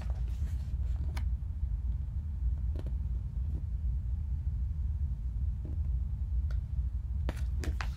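Steady low background hum with a few faint taps. Near the end comes a short rustle of paper as a picture-book page is handled.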